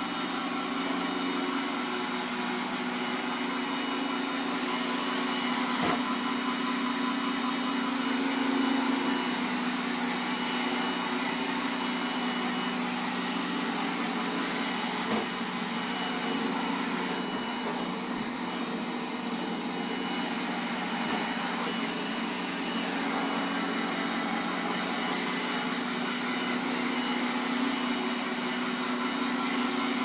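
Roomba 980 robot vacuum running on a hard laminate floor: a steady motor hum and suction whir as it drives about. Twice there is a faint click.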